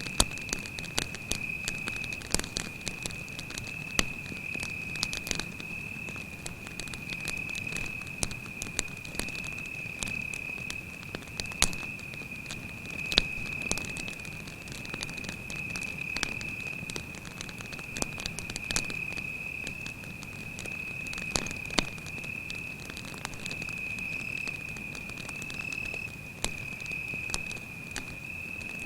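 Campfire crackling, with frequent sharp snaps and pops of burning wood, over a cricket's steady, unbroken high-pitched trill.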